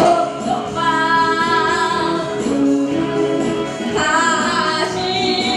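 Woman singing live into a handheld microphone over backing music, holding long notes that waver in pitch.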